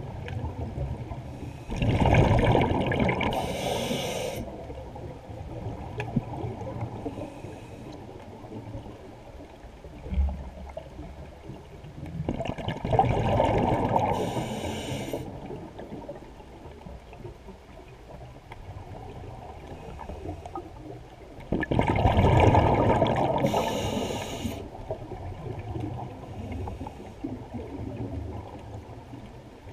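A scuba diver breathing through a regulator underwater: three long rushes of exhaled bubbles about ten seconds apart, with quieter water noise between.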